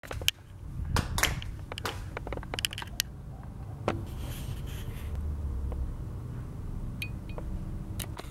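Scattered sharp clicks and scrapes, thickest in the first three seconds with a couple more near the end, over a steady low rumble.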